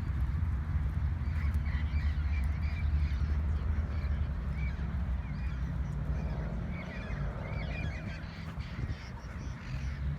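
A flock of wild parrots squawking and chattering with many short, overlapping calls, busiest past the middle, over a steady low rumble.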